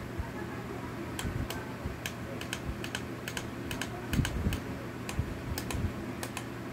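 Irregular light plastic clicks, a few a second, from buttons being pressed and the plastic case of an alarm clock being handled, over a steady low hum. The clicks start about a second in.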